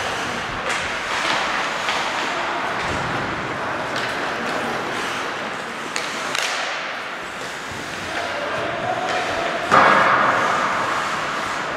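Ice hockey game sounds in a rink: scattered sharp clacks and thuds of sticks, puck and boards over a steady hubbub, with a louder sudden burst near the end.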